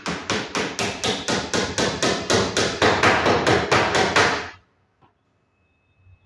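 Rapid, even hammer blows, about four to five a second, while covering the back of a wooden wardrobe; they stop suddenly about four and a half seconds in.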